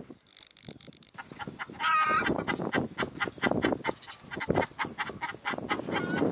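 Chickens clucking rapidly, starting up about a second in, with a short, clear squawk about two seconds in and another near the end.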